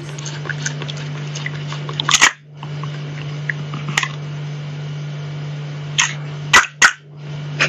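Sharp plastic clicks from a dinosaur-shaped lollipop toy, several times, over a steady low hum.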